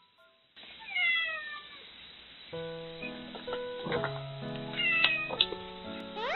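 Domestic cat meowing: one long falling meow about a second in and a shorter one around five seconds in, over light background music that comes in about two and a half seconds in.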